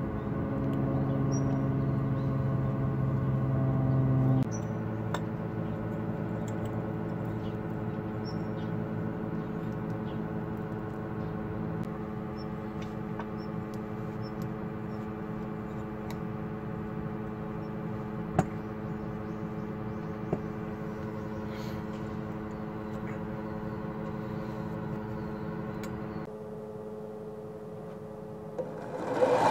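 Soft background music of long held tones, like a sustained drone, shifting about four seconds in and thinning out near the end, with a couple of faint clicks.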